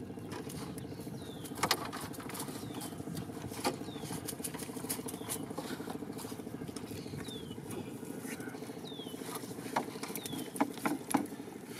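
Sharp clicks and light knocks as small fish and shrimp are shaken out of a ring net into a plastic crate, with a cluster of louder knocks near the end. Under it runs a steady low drone, and a short high falling chirp repeats every second or two.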